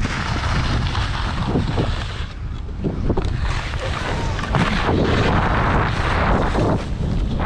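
Wind buffeting an action camera's microphone on a chairlift, then skis sliding down the snow of the unloading ramp, the rushing noise growing louder about halfway through.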